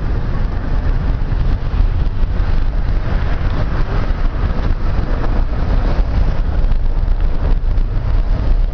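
Steady low rumble of a moving car with wind buffeting the microphone.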